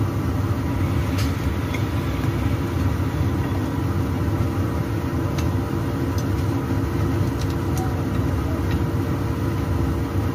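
Steady low hum of a kitchen extractor fan running over the stove. A few faint, light clicks come from cooking chopsticks handling the frying cake.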